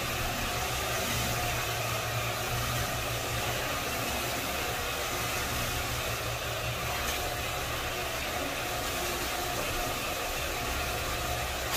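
Single-disc rotary floor buffer running steadily on a hardwood floor: a constant motor hum under an even rushing noise from the spinning pad.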